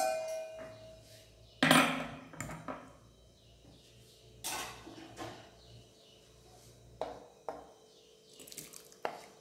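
Metal ladle and cookware clinking and knocking against glass serving bowls, a few separate knocks with the loudest about two seconds in.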